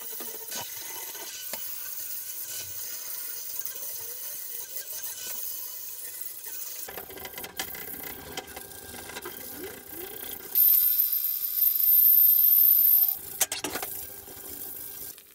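Sanding the moulding seams off a PVC pipe fitting. Sandpaper scratches against the plastic, and for a couple of seconds past the middle a hand-held power tool runs loudly with a high whine, then stops with a click.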